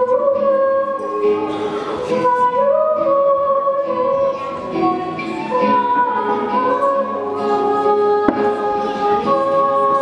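Girls' vocal quartet singing in harmony, several voices on long held notes that shift pitch together every second or so.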